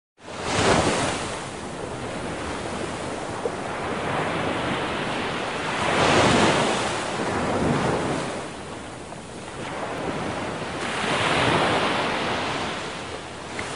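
Ocean surf breaking and washing up a sandy, rocky beach, swelling louder three times as successive waves come in.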